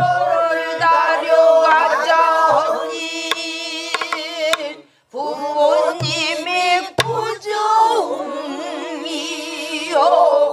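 Pansori singing: a long, drawn-out line with a wavering vibrato, sung in two phrases with a short break about five seconds in. A few sharp strokes of a buk barrel drum mark the rhythm.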